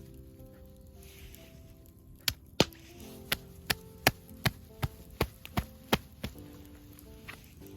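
A knife chopping on a cutting board: about ten crisp strokes in a steady rhythm, roughly three a second, starting a couple of seconds in and stopping after about four seconds.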